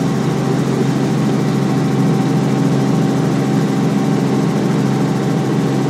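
Steady drone of a helicopter's engine and rotor, heard from inside the cabin during a low approach to land.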